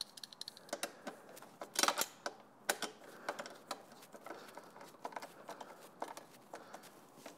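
Irregular small metallic clicks and scrapes from a flat-blade screwdriver tip nudging a large washer on a motorcycle tail-fender bracket, working it back to centre over its spacer. The clicks come loosest and loudest about two seconds in.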